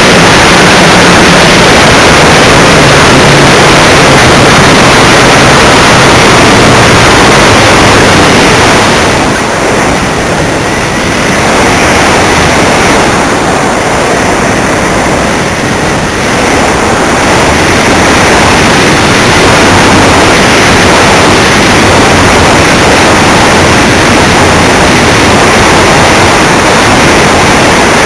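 Loud, steady rush of wind and propeller noise picked up by a camera riding on a radio-controlled model airplane in flight; it eases slightly twice in the middle.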